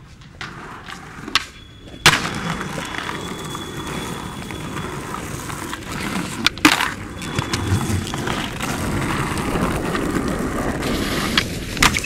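Skateboard wheels rolling across paved ground, with sharp clacks of the board hitting the ground: the loudest about two seconds in as the rolling starts, a pair about six and a half seconds in, and one more near the end.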